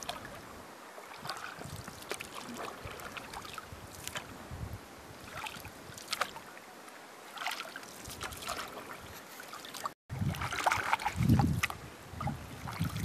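Canoe paddle strokes: a wooden paddle dipping and pulling through calm lake water, with soft splashes and drips every second or two. About three-quarters of the way through the strokes turn louder and closer, with a low rumble.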